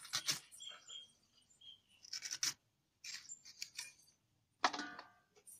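Raw green mango being sliced against an upright curved cutting blade: a few short scraping cuts with pauses between them.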